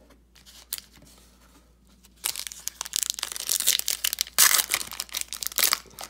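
A foil trading-card pack wrapper being torn open and crinkled by hand. It starts about two seconds in, after a few soft clicks, and goes on as a loud, dense crackle.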